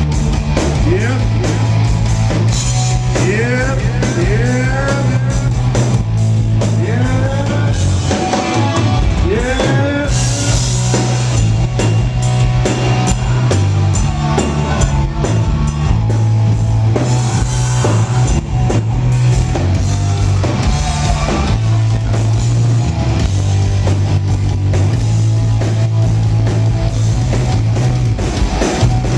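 Live heavy metal band playing loud: distorted electric guitar, bass and a drum kit, with bending, gliding guitar or vocal lines in the first ten seconds or so.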